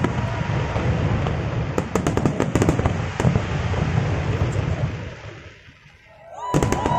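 Large aerial fireworks display: rapid bangs and crackles over a deep, continuous rumble, dying away about five seconds in. Just before the end, cheering and steady horn-like tones start up.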